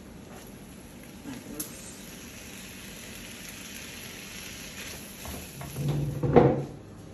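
Rice and tomato stuffing for grape-leaf sarma sizzling in a pan while a wooden spatula stirs chopped parsley into it, a steady hiss with a sharp click about a second and a half in. A brief louder sound comes near the end.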